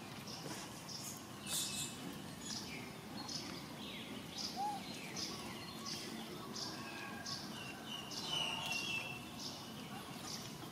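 Birds chirping: short, high chirps repeating at a fairly even pace, a little faster than one a second, over faint steady background noise.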